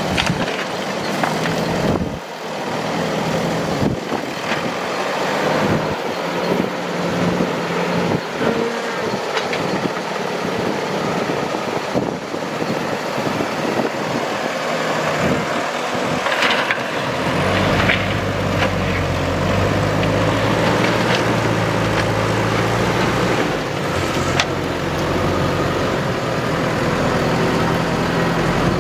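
Diesel engines of heavy earthmoving machinery running steadily while loading sand, with a few sharp knocks along the way. About two-thirds of the way through, the engine note grows deeper and stronger.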